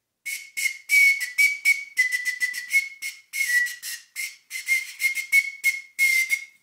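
Tiny plastic recorder blown in a rapid string of short, breathy toots, all on one high note that wavers slightly in pitch.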